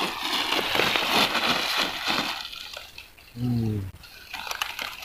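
Rustling and crinkling of a plastic bag being handled, dense for about two seconds, then a man's short low hum.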